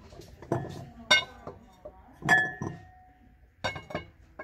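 Glass pedestal bowl clinking as the woven balls in it are lifted and set back down: several sharp knocks, the loudest about two seconds in, which rings on briefly.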